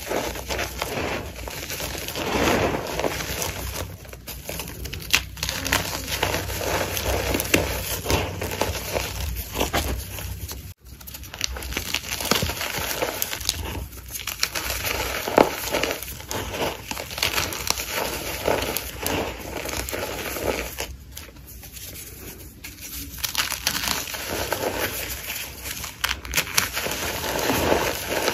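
Soft gym chalk and cornstarch being crushed, a dense run of crunching and crackling with many small crumbly clicks, easing off twice and cutting out for an instant about eleven seconds in.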